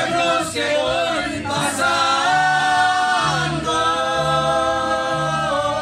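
Music with several voices singing long held notes together over a repeating bass figure.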